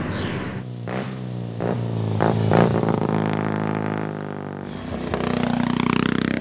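Racing car engine running with its pitch shifting, broken by several short sharp sounds in the first half. A louder, deeper engine note starts about five seconds in.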